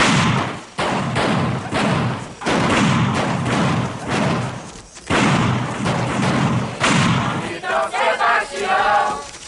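A crowd shouting and cheering in loud repeated bursts about once a second. Near the end, many voices begin chanting together.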